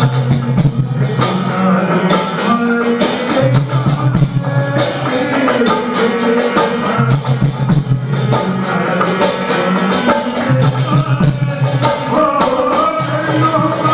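Devotional bhajan (satsang kirtan) music: a melody over sustained held instrumental notes, with a quick, steady percussion beat.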